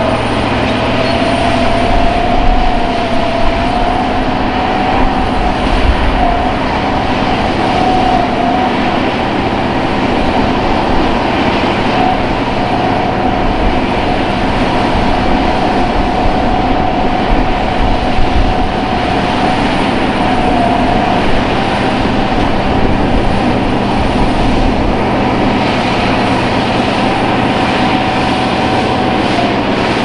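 Caterpillar D11R CD Carrydozer's V8 diesel engine working under load as the dozer pushes a full blade of soil, a steady high whine held over the engine's drone.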